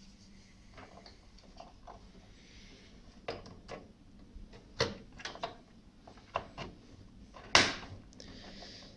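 Hands handling parts inside an open desktop computer case around the motherboard's expansion slots: a string of short clicks and knocks of plastic and sheet metal, the loudest one about three quarters of the way through.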